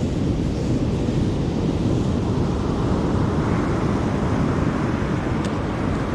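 Big surf on a shore-break beach, a wave washing in and hissing up the sand about two seconds in, under a heavy rumble of wind on the microphone.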